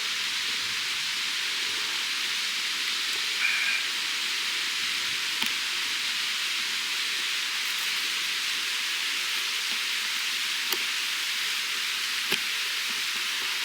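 Skewered chicken (yakitori) sizzling over the heat in a steady hiss, with a few sharp pops of spitting fat.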